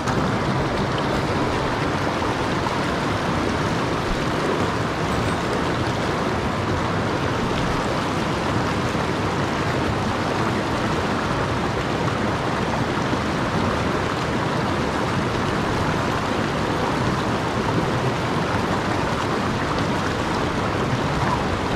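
Stream water rushing and splashing over and between granite boulders, a steady, even rush of running water.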